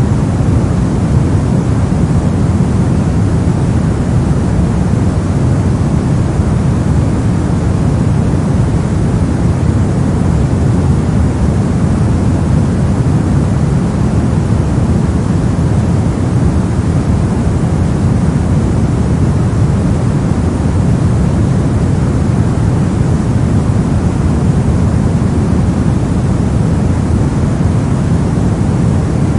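Steady synthetic soft noise, a continuous even hiss weighted toward the low end like pink or brown noise, with no changes or events.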